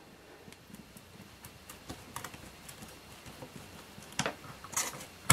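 Light, scattered clicks and taps of a small hand tool working the set screw of a control knob on metal hardware. There is a louder click about four seconds in, then a short scrape and a sharp click at the end.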